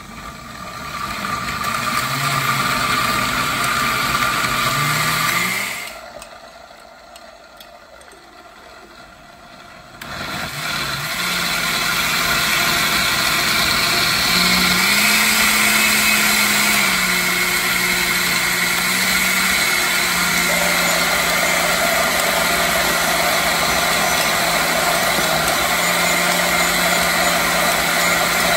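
Oster countertop blender motor running, chopping whole peanuts, tomatoes and chiles in water into a sauce. It stops about six seconds in, then starts again about four seconds later and runs steadily.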